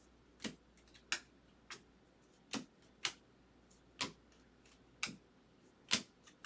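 Trading cards being flipped through one at a time, a short, sharp snap as each card is slid off the stack, about nine in all at an uneven pace of roughly one a second.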